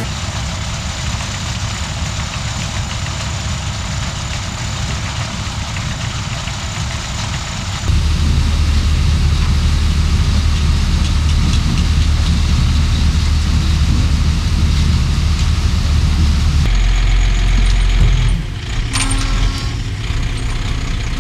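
Engine noise from heavy sugar beet harvest machinery running under load: a steady rumble with mechanical clatter. It steps louder about eight seconds in and shifts again near the end, as if from one machine or shot to another.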